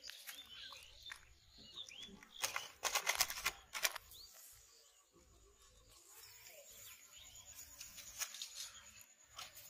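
Bursts of crackling and rustling as hands work a hooked fish among dry leaves and water-hyacinth stems, loudest from about two and a half to four seconds in and again briefly near the end. Small birds chirp faintly in the background.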